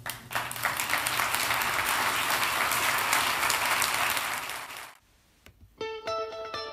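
Audience applauding, a dense clatter of many hands that fades out about five seconds in. After a brief silence, music starts near the end.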